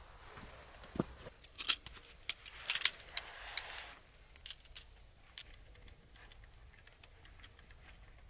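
A run of light clicks and metallic clinks of small objects being handled, busiest in the first half and thinning to a few faint ticks later.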